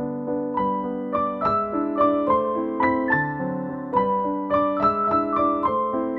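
Instrumental background music on keyboard: a melody of separate notes over held low notes, entering about half a second in.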